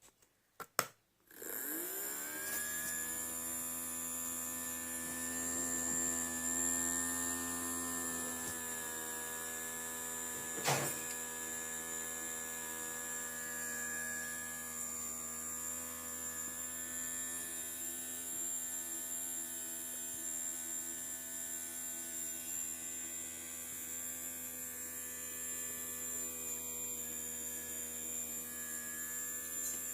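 Small electric motor switched on with two clicks, spinning up quickly and then running with a steady hum. There is one sharp tap about eleven seconds in.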